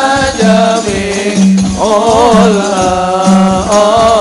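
Islamic sholawat sung to hadrah frame drums (rebana) beating a steady rhythm. About two seconds in the voice draws out a long, wavering, ornamented melisma.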